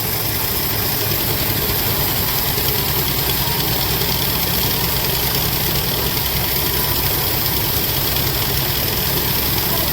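Sawmill machinery running steadily: a constant engine drone with a high hiss over it and no change in pace.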